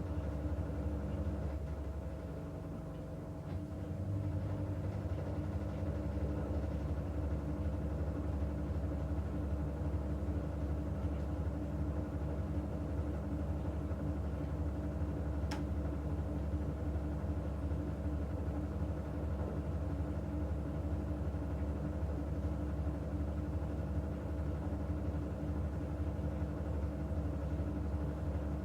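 Washing machine running with a steady low motor hum, which dips briefly a few seconds in; a single sharp click about halfway through.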